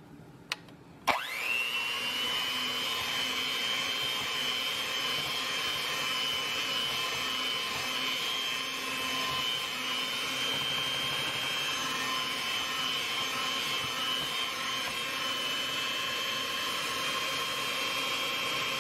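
Electric hand mixer switching on about a second in, its whine rising quickly to speed, then running steadily as its beaters work through mashed sweet potatoes with melted butter and sugar.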